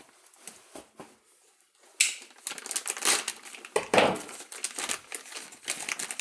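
Rummaging through parts on a workbench: plastic bags crinkling among irregular clicks and knocks, starting suddenly about two seconds in after a near-quiet moment.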